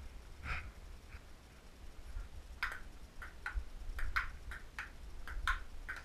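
Table tennis ball clicking against the table and paddles in a rally. A couple of single clicks come first, and about two and a half seconds in a quick run of several clicks a second begins.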